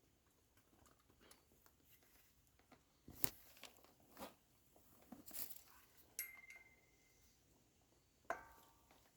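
A few scattered metal clanks and taps from hand tools and parts during hub removal, the loudest about three seconds in; two strikes, about six and eight seconds in, ring on briefly like struck steel.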